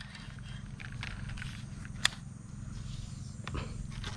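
Quiet outdoor ambience: a steady low rumble with faint scattered ticks and one sharp click about two seconds in.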